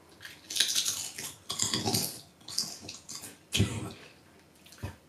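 A crisp snack chip being bitten and chewed right at a handheld microphone: a run of crackly crunches over the first two seconds, then a few shorter crunches.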